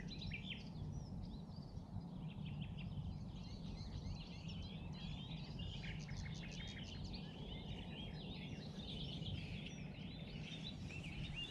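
Small birds chirping and singing, many short overlapping calls and trills, over a steady low background rumble.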